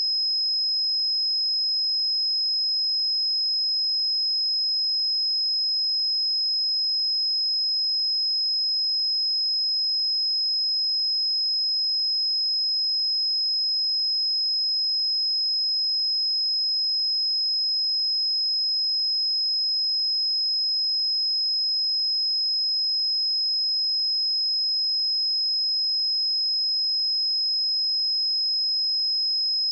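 A steady 5113 Hz sine-wave test tone, one high, pure pitch held unchanged at a constant level.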